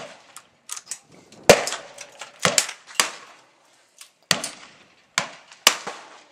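Gunshots, about ten, fired at irregular intervals, some louder and nearer than others, the loudest about a second and a half in.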